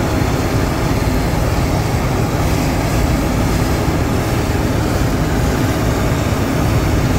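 John Deere X9 1000 combine harvester running under load while cutting a standing crop: a loud, steady machine noise that holds even throughout.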